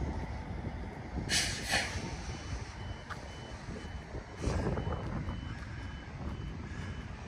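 A vehicle's reversing beeper repeating a high beep about two and a half times a second, starting about two seconds in, over a steady low rumble, with a short burst of hiss just over a second in.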